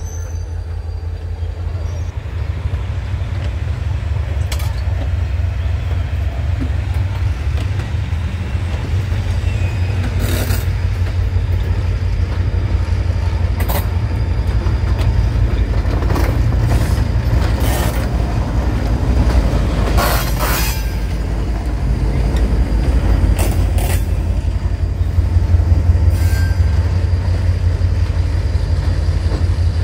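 Passenger train rolling slowly past at close range, with the trailing FEPASA D-2355 diesel locomotive passing by. A steady low diesel engine rumble grows louder toward the end, mixed with wheel noise and a few short, sharp metallic sounds from the wheels on the rails.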